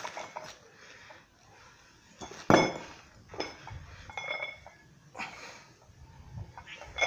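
Loaded barbell clinking as it is lifted and pressed: the weight plates knock against the bar and collars in a few sharp metal clinks with short ringing, the loudest about two and a half seconds in, others near four seconds and at the end.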